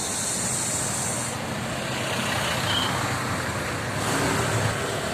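Roadside traffic noise with a bus engine's low rumble and a high hiss during the first second and a half.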